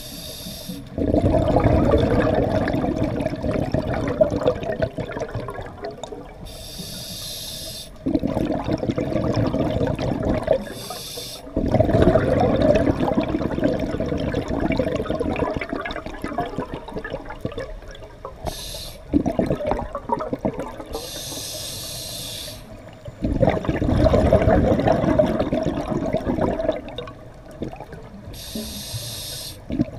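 Scuba breathing heard underwater through a regulator. Long rushes of exhaled bubbles alternate with short hissing inhalations, several breaths in turn.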